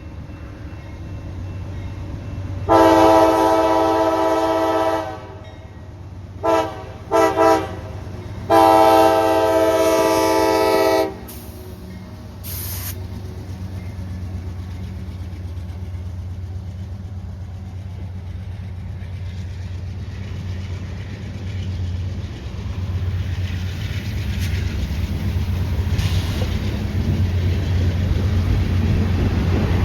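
CSX freight train's diesel locomotives rumbling under power as the train speeds up. The locomotive's multi-note air horn sounds a long blast, three short toots and a second long blast. The engine rumble then builds steadily louder, with the wheels starting to clatter over the rail joints near the end.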